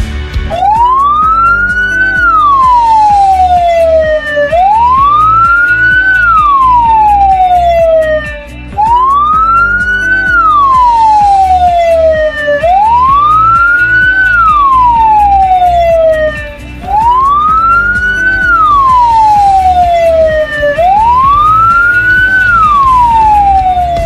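Ambulance siren in a slow wail: six rise-and-fall sweeps, each rising quickly and falling more slowly over about four seconds, over background music. This slow wail is the pattern taken to signal an ambulance or hearse carrying a body.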